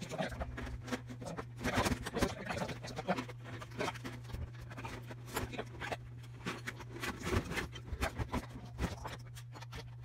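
Scattered small clicks, taps and scrapes of hands taking apart a microwave oven, handling its metal casing, wiring and internal parts, over a steady low hum.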